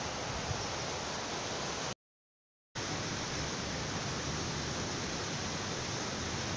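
Steady rush of a mountain stream and small waterfall, cutting out completely for under a second about two seconds in.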